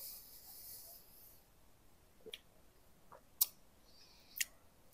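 Quiet mouth sounds of someone tasting a thick protein shake: a faint sip at first, then three short lip and tongue clicks about a second apart.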